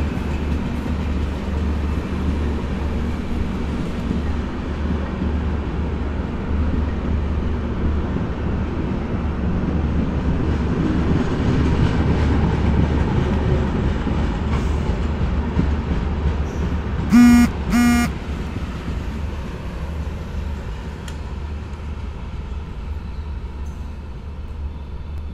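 An Indian Railways express's LHB passenger coaches roll past, a steady low rumble of wheels on rail that eases off near the end as the last coach goes by. About 17 seconds in, two short horn toots sound.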